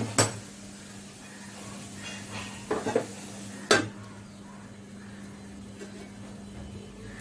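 A steel lid is set down on a metal kadai with a sharp clank about four seconds in, after a few lighter knocks of utensil on pan. Radish greens sizzle faintly in the pan beneath.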